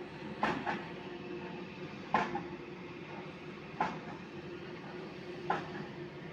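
Heavy machinery running with a steady hum, broken by a sharp metallic clank about every one and a half to two seconds, each ringing briefly.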